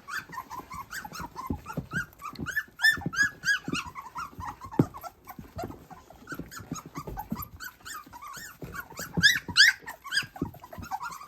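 Several three-week-old doodle puppies squeaking and whining over one another, a steady run of short high cries, loudest in clusters about three seconds and nine seconds in.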